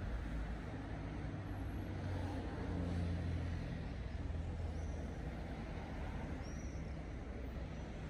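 Street traffic: cars and a van driving by, a steady low engine and tyre rumble that swells slightly a few seconds in.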